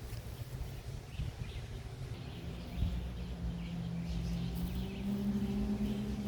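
Outdoor ambience: faint bird chirps over a low rumble, joined a couple of seconds in by a steady low hum that climbs slightly in pitch and grows louder toward the end.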